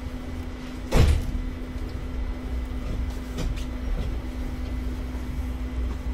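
Electric commuter train running on its line, heard from the cab: a steady low rumble with a constant hum. About a second in there is one sharp knock, and lighter knocks follow around three and four seconds in.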